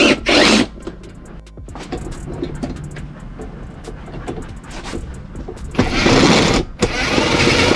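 Cordless drill/driver running in short rasping bursts, loudest about six and seven seconds in, as it turns a camber-arm bolt while the other end is held with locking pliers; the bolt's threads are stripped.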